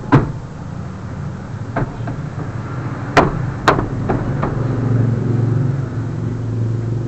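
Six sharp knocks and clicks, most of them in the first half, from work on a van's sliding-door handle, over a steady low hum.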